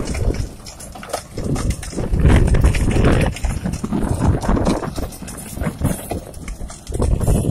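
Tractor-mounted rotary tiller churning dry soil: an uneven rumble with repeated knocks, swelling louder about two seconds in and again near the end.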